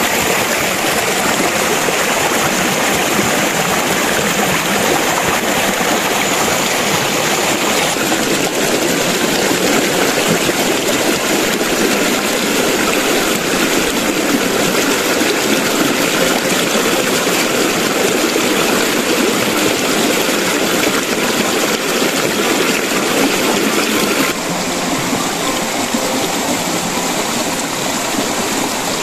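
Shallow creek water rushing steadily over rocks, a dense hiss of flowing water that drops slightly in level about 24 seconds in.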